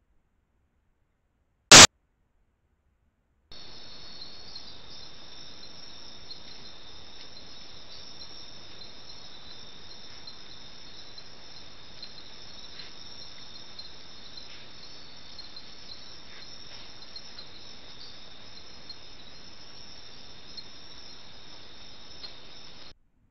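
A single loud, sharp click about two seconds in, then a steady, high-pitched chorus of night insects that cuts in abruptly after a few seconds and cuts off just before the end.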